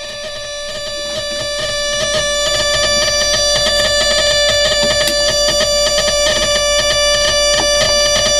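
Live electronic drone: many steady tones held together over a fast, buzzing flutter, swelling slowly louder.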